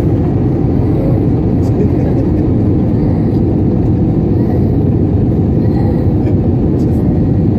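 Steady low rumble of a jet airliner in flight, engine and airflow noise heard inside the cabin at a window seat over the wing.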